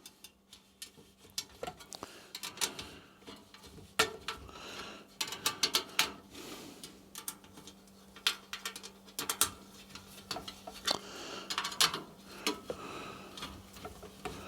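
Irregular light metallic clicks and taps of a spoke key turning the spoke nipples of a mountain-bike wheel as its spokes are tightened and trued.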